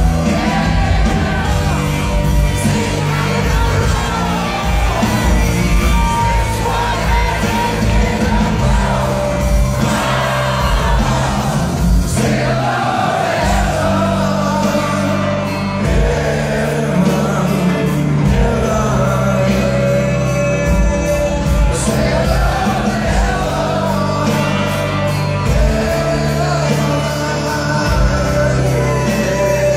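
A live rock band plays with a lead vocal, electric guitars, bass and drums. It is recorded from among the audience.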